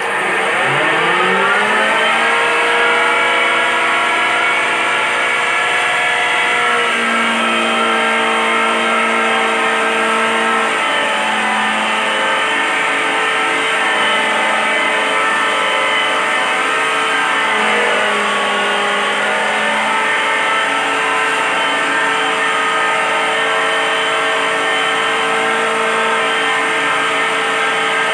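Electric chilli pulverizer (masala grinding machine) switched on: its whine rises in pitch as it spins up over the first two seconds, then it runs at a steady hum of several tones. About two-thirds of the way through the pitch sags briefly and recovers.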